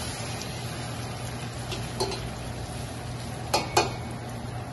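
Beef roast sizzling in hot oil and melting papelón (raw cane sugar) in a stainless stockpot as it is turned with metal tongs, the sugar caramelising around the meat. The tongs clack against the pot about two seconds in and twice in quick succession near the end, over a steady low hum.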